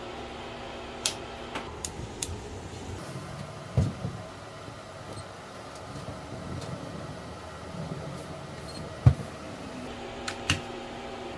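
Handling noise from wiring work: scattered clicks and knocks as heavy battery cables and tools are moved about, with two louder dull thumps about four and nine seconds in, over a steady faint electrical hum.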